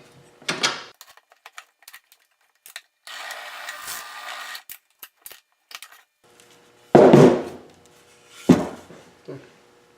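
Clicks and clatter of tools and a wooden workpiece in a drill press setup, with about a second and a half of rasping drilling noise, then two loud knocks with a faint steady hum behind them.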